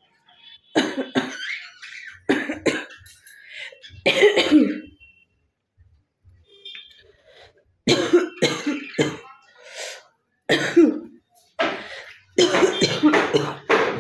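A woman coughing in repeated short fits, with a pause of a couple of seconds in the middle; she has a cough and is trying to bring up phlegm.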